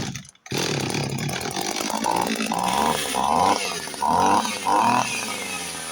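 Oleo-Mac 945 two-stroke chainsaw catching about half a second in and running on fuel squirted into it after a long time on the shelf, revved up in several short bursts.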